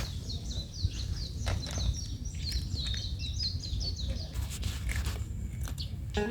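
A small bird chirping in a quick series of short, high, falling chirps, about three a second, over a steady low outdoor rumble, with a few soft knocks.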